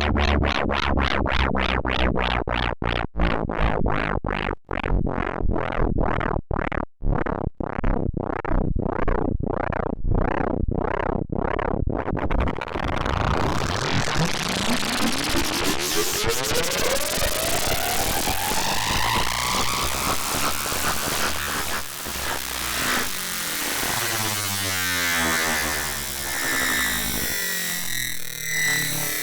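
Raw synthesized electronic sound from ArtMatic Pro: a rapid pulsing for the first twelve seconds or so, the pulses slowing as it goes, then a harsh dense wash of noise with rising, curving pitch sweeps.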